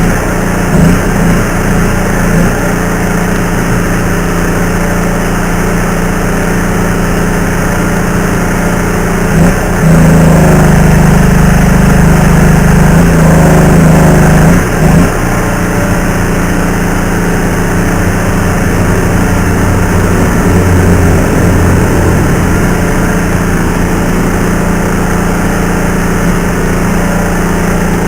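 A steady motor drone with a strong low hum, running louder for a few seconds around the middle.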